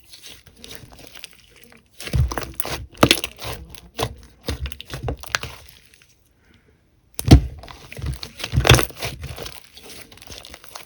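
Slime being squished and pressed by hand, making crackling and popping sounds. There are two dense runs of handling, the first starting about two seconds in and the second after a short silent pause.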